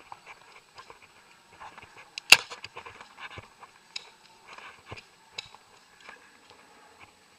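An airsoft pistol fired once, a sharp crack about two seconds in, among scattered lighter clicks and knocks.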